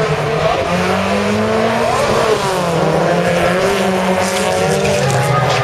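Several folkrace cars' engines revving hard at once as the pack accelerates away from the start, their notes rising and falling as the drivers work through the gears.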